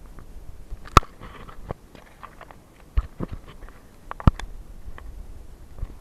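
Footsteps and bodies moving through forest undergrowth: irregular crunches and sharp snaps of dry leaves and twigs, with brushing of leaves. The loudest snaps come about a second in and again past four seconds.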